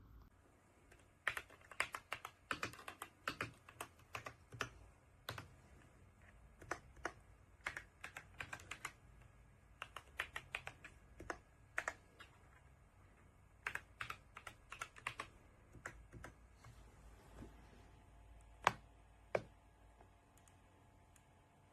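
Typing on an RK Royal Kludge S98 mechanical keyboard: several quick runs of key clicks separated by short pauses, then two single keystrokes near the end, the louder of them the loudest sound here.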